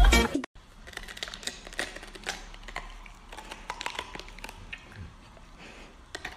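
A dog biting and chewing into a whole red cabbage, with irregular crisp crunches and leaf snaps. A brief burst of music and voice cuts off sharply in the first half-second.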